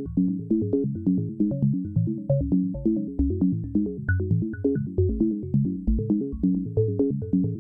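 Dave Smith Evolver hybrid analog-digital synthesizer playing a sequenced patch: a fast repeating pattern of short, quickly decaying low notes, about three to four a second, with occasional higher blips.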